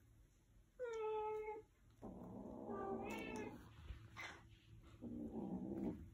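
Siberian kittens vocalising. About a second in there is a short, steady meow, then a longer, harsher yowling call, and near the end a low growl, typical of a kitten at this age being protective over a toy.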